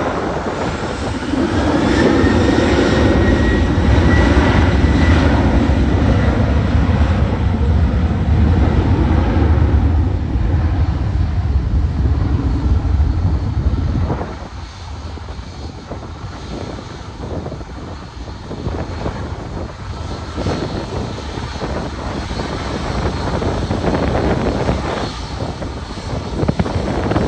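A passenger airliner's engines passing close by: a heavy rumble with a faint high whine, loud for about twelve seconds and then dropping away sharply about halfway through, leaving gusts of wind on the microphone.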